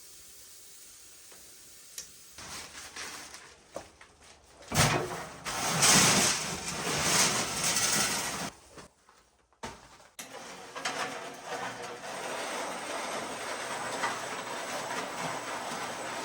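Water rushing from a hose into a mortar (mud) mixer for about four seconds. After a short break comes steady churning noise with scattered knocks, as the mixer mixes the concrete.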